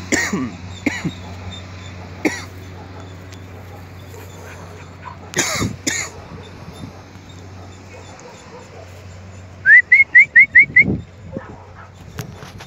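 Young Alaskan malamute giving a quick run of six short, rising, high-pitched whines about ten seconds in. Two short sharp noises come a few seconds before.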